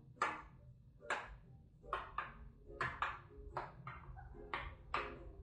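Spoon clinking against a glass bowl while stirring a pumpkin-and-milk mixture: a string of light, irregular clinks, roughly two a second, each ringing briefly.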